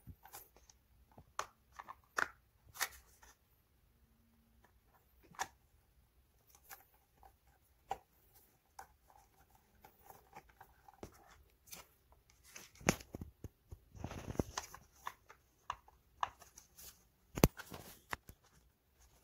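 Scattered small clicks and taps of a metal hex key and hard plastic chair parts being handled as a bolt is turned into a plastic side cover, with a brief rustle and a sharper click near the end.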